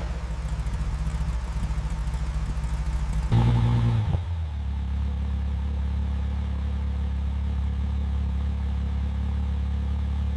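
Ferrari V12 engine idling, with a short throttle blip a little over three seconds in that jumps up and falls back to a steady idle.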